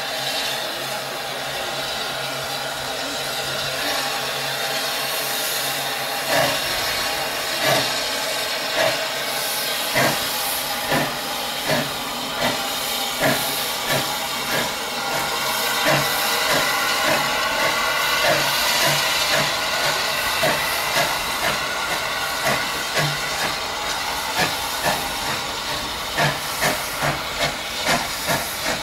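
SE&CR H class 0-4-4T steam tank locomotive No. 263 starting away, steam hissing steadily. About six seconds in, its exhaust chuffs begin and quicken to about two a second as it gathers speed.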